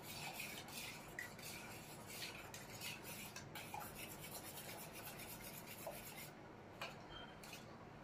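A hand mixing gram flour into lassi in a steel bowl: faint, quick rubbing and splashing strokes of the fingers through the batter and against the bowl. It gets softer near the end.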